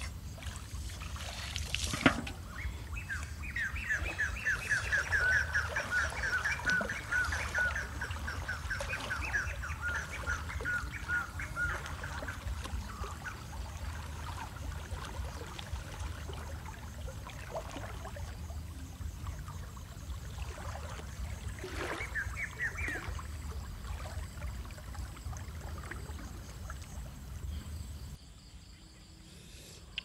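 Water sloshing as a person wades through a river pushing a large metal basin, with a single knock about two seconds in. A bird calls over it in a long run of quick repeated notes for several seconds, and again briefly later.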